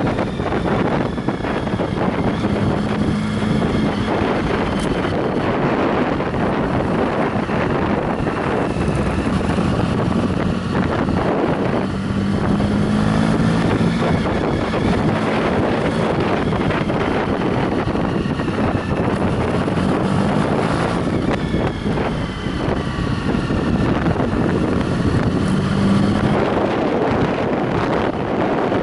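Motorcycle engine running under way, its pitch rising and falling with the throttle, heavily masked by wind buffeting on the camera microphone.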